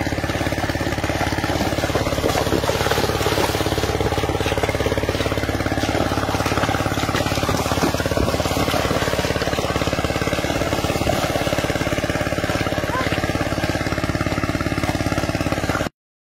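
An engine running steadily at an even speed, a constant drone that cuts off suddenly near the end.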